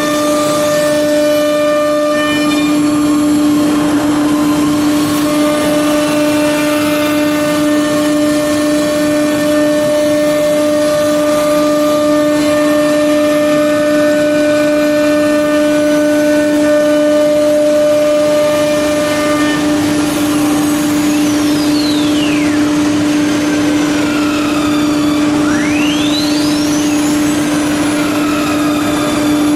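CNC router spindle running steadily while its cutter mills profiles into an MDF panel: a strong, even hum over cutting noise. In the last third a thin high whine sweeps down in pitch and back up again.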